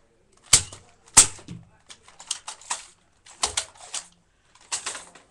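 Plastic clicks and clacks from Nerf Maverick toy blasters being handled: two loud, sharp clacks about half a second and a second in, then several groups of quicker clicking.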